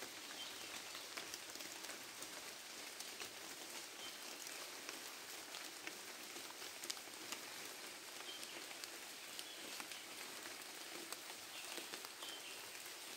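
Light rain falling on rainforest leaves and leaf litter: a soft, steady hiss dotted with the ticks of single drops.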